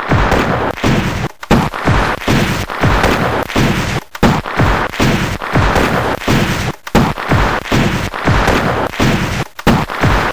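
Gunfire sound effects: shots going off in quick succession, roughly two a second, each with a short booming tail.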